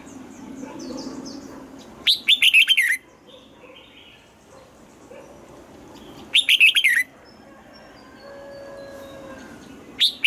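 Red-whiskered bulbul singing: loud short phrases of rapid notes that fall in pitch, one about every four seconds, with the third starting at the very end. Soft twittering fills the gaps between phrases.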